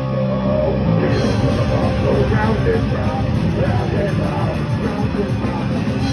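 Heavy rock music with electric guitar and drums, no singing. A held chord gives way about a second in to a busier, driving passage.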